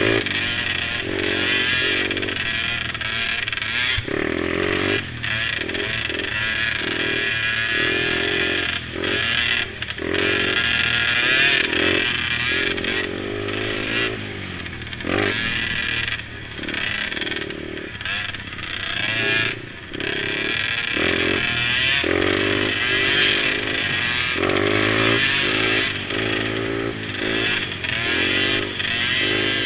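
Small engines of racing mini quads running hard, their pitch rising and falling as the throttle is opened and shut again and again.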